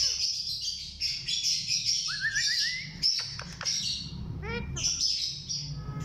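Indian ringneck parakeets chattering and chirping continuously in high, scratchy calls, with a short run of rising whistled notes about two seconds in and another pitched, gliding call a little after four seconds.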